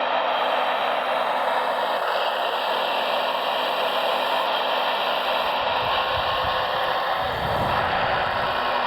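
Radio-controlled scale construction machinery running: a steady mechanical whirring from electric motors and gears, with light clatter and a low rumble rising partway through.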